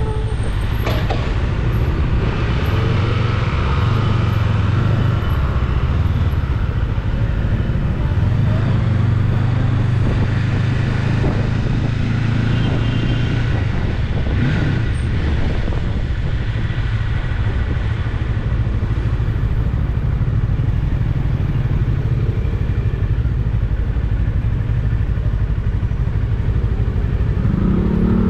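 Rusi Cyclone 400S motorcycle under way at a steady pace: engine and road noise as one constant low rumble with a rushing hiss, loud and even throughout, with no clear revs or gear changes.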